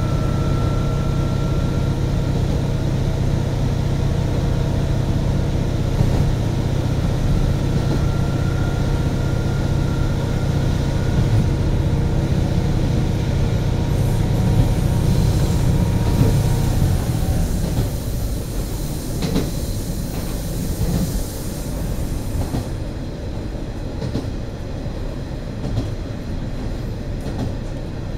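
KiHa 40 diesel railcar running, heard inside the car: the diesel engine drones steadily under power over wheel-on-rail rolling noise and the occasional click of a rail joint. About two-thirds of the way through, the engine drone drops away and the car rolls on with only wheel and rail noise, as it does when the throttle is closed to coast.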